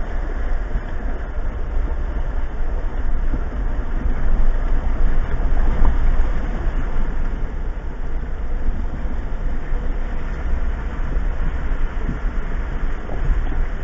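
Steady rumble of a 2015 Jeep Wrangler Unlimited Rubicon crawling at walking pace through a shallow rocky creek, heard from inside the cab: engine and drivetrain drone with the tyres working over stream-bed stones, with small irregular knocks.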